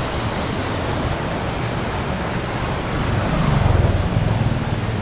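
Steady rushing noise of wind on the microphone, with a stronger gust buffeting it from about three seconds in to four and a half.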